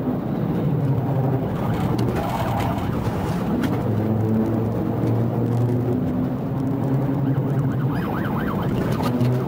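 Police cruiser's engine running hard in pursuit, heard from inside the car, with a siren wailing up and down that is clearest near the end.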